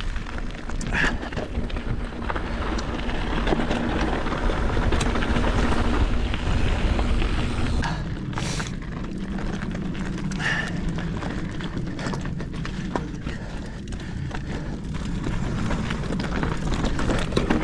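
Mountain bike riding over a rocky dirt trail: a continuous rumble of tyres and wind on the microphone, with scattered clicks and knocks of the bike rattling over rocks.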